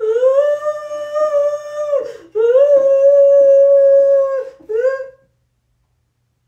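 A high voice holding two long, steady, wordless notes of about two seconds each, each scooping up slightly at the start, then a short third note that rises and breaks off about five seconds in.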